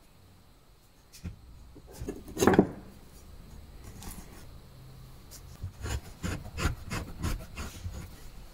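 Scissor blades being worked into the gap between two pine boards: wood and metal rubbing and scraping, loudest once about two and a half seconds in. Then a quick run of sharp clicks, about three a second, as one-handed bar clamps are squeezed tight on the boards.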